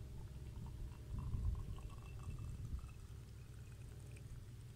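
Tea pouring from a teapot into a glass tea glass: a thin stream trickling into the glass. A low rumble runs underneath.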